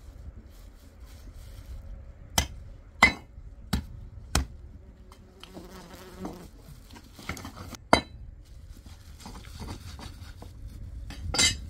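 Six sharp knocks at uneven intervals, the last one longer, over a faint steady buzz.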